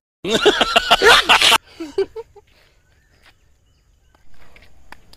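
A loud vocal cry with a wavering pitch, about a second and a half long, then a few faint clicks.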